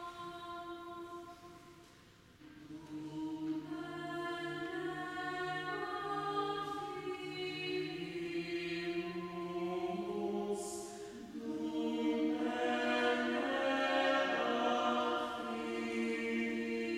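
A small choir singing a cappella in several parts in a church. One phrase dies away about two seconds in, then a new phrase starts on a low line. More voices join, and the singing grows louder about eleven seconds in.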